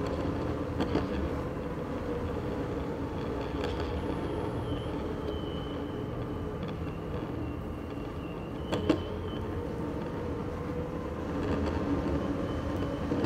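Dual belt-driven brushless motors of a DIY electric skateboard, run in FOC mode, whining steadily under the rider, with the wheels rolling on a smooth floor. A single sharp knock comes about nine seconds in.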